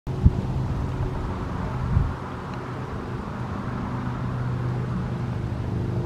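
Steady low hum of a running motor, with a sharp knock just after the start and a duller thump at about two seconds.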